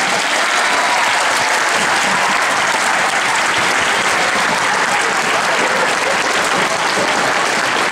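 Audience in a hall applauding loudly and steadily, a crowd of many hands clapping.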